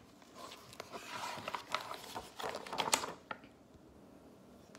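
Pages of a picture book being turned and handled: papery rustling with light taps, loudest about three seconds in.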